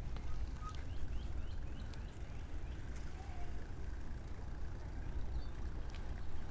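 Low, unsteady rumble of wind buffeting the microphone outdoors, with a quick run of faint chirps about a second in.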